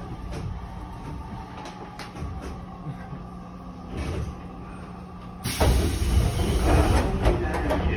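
Chiba New Town Railway 9800 series train car heard from inside, a low running rumble with faint clicks as it comes into the station. About five and a half seconds in, the passenger doors slide open with a sudden, much louder burst of noise that carries on to the end.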